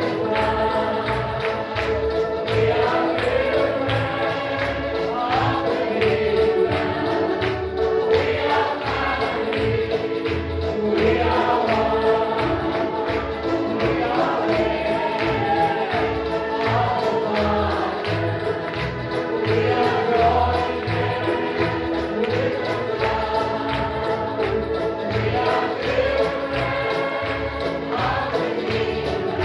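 Background music: several voices singing together over a steady beat.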